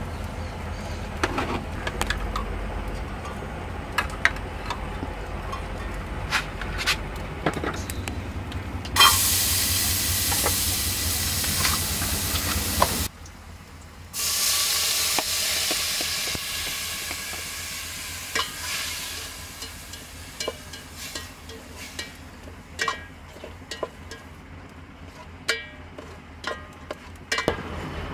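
Chopped tomatoes scraped from a bowl into a hot aluminium pot, sizzling loudly from about nine seconds in, breaking off briefly, then slowly dying down. A metal ladle clinks and scrapes against the pot and bowl throughout.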